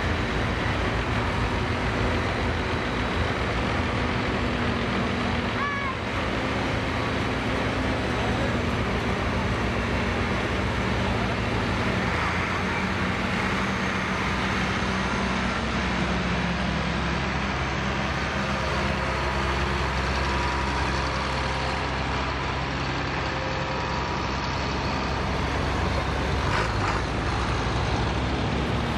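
Engines of a procession of farm tractors (an International Harvester, John Deeres and an older Farmall) running at low speed as they drive past one after another. The engine pitch shifts partway through as one tractor gives way to the next.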